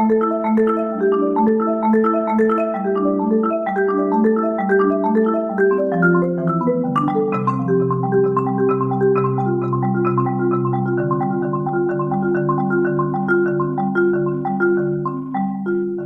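Solo marimba played with four mallets: a flowing stream of quick repeated notes in shifting chords, the bass notes stepping lower about seven seconds in.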